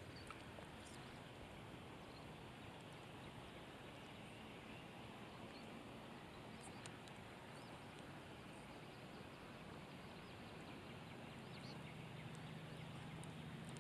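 Faint outdoor ambience: a steady low hiss with a few brief, faint bird chirps. A faint low hum comes in near the end.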